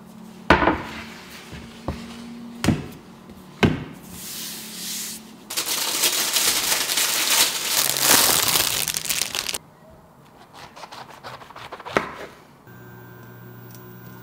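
A wooden cutting board knocking down onto the countertop a few times, then the plastic wrapping of a pack of mushrooms crinkling loudly for about four seconds. A few light clicks and a knock follow, and a steady low hum starts near the end.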